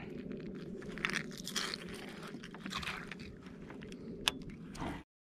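Close handling noise of a small jointed swimbait and its metal snap being worked by hand at a baitcasting reel: irregular crunching and scraping, with one sharp click about four seconds in, over a steady low rumble. It cuts off suddenly just after five seconds.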